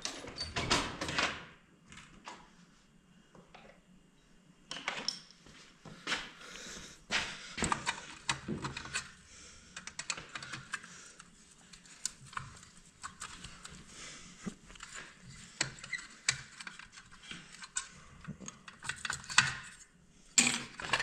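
Irregular light clicks, taps and clinks of hand tools and small metal and plastic parts being handled while a truck headlight housing, its adjusters and spring are taken apart. A quieter stretch comes about two seconds in, and the clicking gets busier from about five seconds on.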